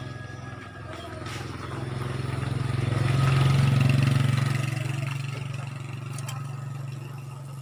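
A motor vehicle's engine running with a steady low hum that grows louder toward the middle and then fades, as it passes close by.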